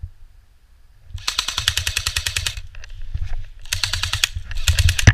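Airsoft rifle firing full-auto in three bursts of rapid, evenly spaced clicks. The first burst starts about a second in and lasts about a second and a half, and two shorter bursts follow near the end.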